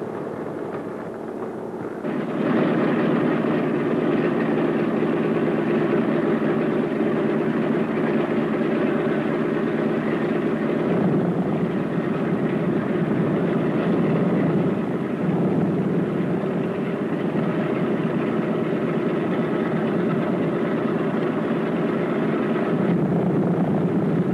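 B-17 Flying Fortress Wright R-1820 Cyclone nine-cylinder radial engines idling on the ground, a steady, dense engine sound. About two seconds in it steps up louder and fuller as another engine starts up.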